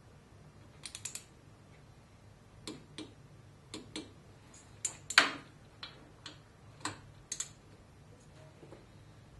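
Torque wrench clicking as cylinder head bolts are tightened: a dozen or so short, sharp metallic clicks at uneven spacing, with the loudest a little past halfway.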